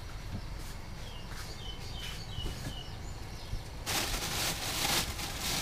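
A bird chirps a few short notes over a low background rumble. About four seconds in, a loud steady hiss suddenly starts and keeps going.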